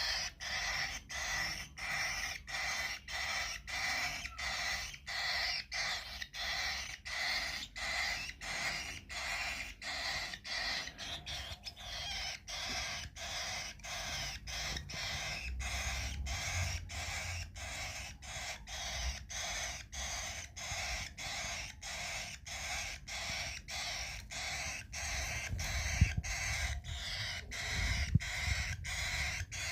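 Baby cockatiel begging for food: a raspy call repeated steadily a few times a second. A few soft knocks come near the end.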